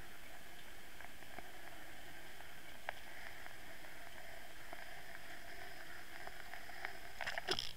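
Water rushing past an underwater camera towed on a fishing line behind a swimbait lure: a steady hiss with scattered faint clicks, and a quick run of louder clicks near the end.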